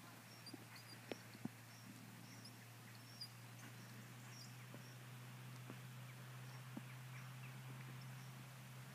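Near silence: faint outdoor air with a steady low hum, and a few faint, irregular taps in the first few seconds.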